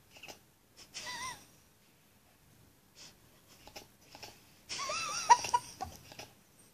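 A rubber dog ball squeaking as it is pressed in a dog's mouth: a short wheezy squeak about a second in, then a longer, wavering one around five seconds in.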